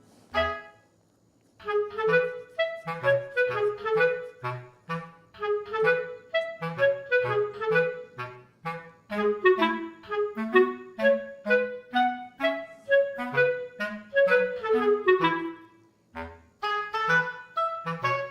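Background music: a light tune of short, detached woodwind-like notes over a bouncing bass line, pausing briefly twice.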